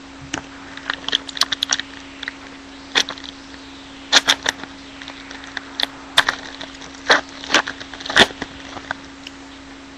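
Football trading cards being flipped and slid through the hands: irregular short clicks and snaps, some in quick runs, over a steady low hum.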